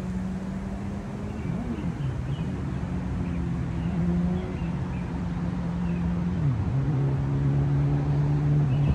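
A motor engine running with a steady low hum that steps down in pitch a few times and grows louder toward the end.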